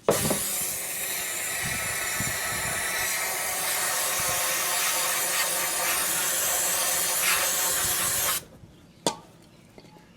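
Aerosol parts cleaner sprayed in one continuous hiss for about eight seconds, flushing out the second side of a GM 7.5-inch differential housing before the new bearing goes in. It cuts off suddenly, and a single click follows.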